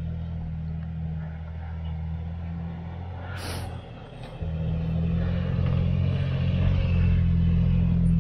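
Pickup truck engine running steadily as the truck works through deep snow, growing louder about four and a half seconds in as it takes more throttle. A short hiss about three and a half seconds in.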